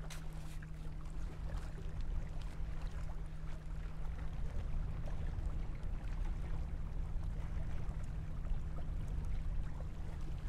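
Steady low rumble of wind and water along a rocky shore, with faint rustles and taps from a nylon tarp shelter being pitched and pegged.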